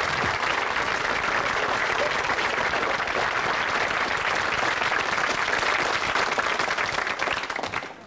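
Studio audience applauding steadily, dying away quickly near the end.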